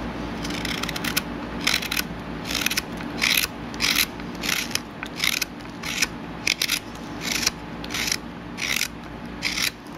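Spoon carving hook knife slicing curls out of a spoon bowl in a pale wood blank: a series of short, crisp cutting strokes, about two to three a second.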